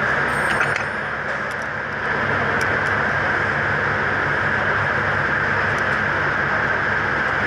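Steady mechanical drone and hiss of shop background noise, with a few light metal clicks from snap ring pliers working a snap ring off a transmission input shaft.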